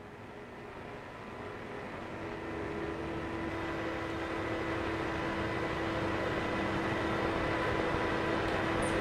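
A rumbling, vehicle-like roar in the dance's recorded sound score, swelling steadily louder throughout, with a few faint steady tones held inside it.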